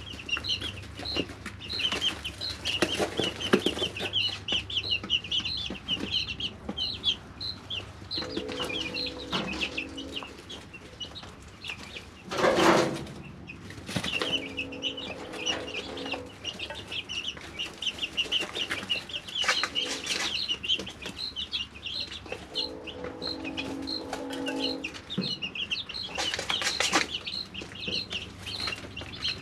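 A flock of three-week-old chicks peeping in a brooder: rapid, high, short peeps, many overlapping, run on throughout. A low hum comes and goes a few times, and a loud rustling burst comes about twelve seconds in.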